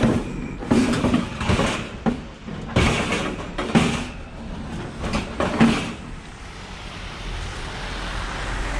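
Scrap being shifted and stacked in the back of a van: a run of scrapes and knocks for about six seconds, then a steady rushing noise.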